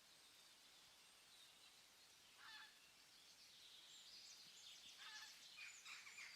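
Near silence with faint outdoor bird calls: one short chirp about two and a half seconds in, then a run of chirps from about five seconds on.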